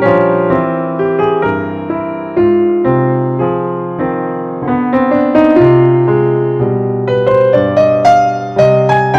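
Background piano music: a slow melody of struck notes over sustained chords.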